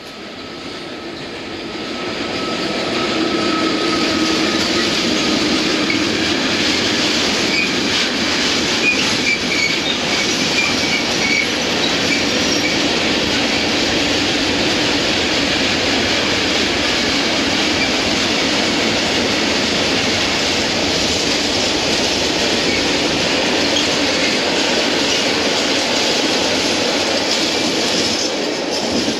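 Freight train of open goods wagons, hauled by a Czech class 182 electric locomotive, rolling past: a loud, steady rolling noise with thin squealing tones from the wheels. It builds over the first few seconds and falls away as the last wagon goes by near the end.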